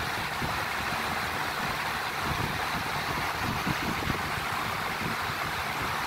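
Lasko electric fan running steadily: a constant airy whoosh of its blades with an uneven low rumble underneath.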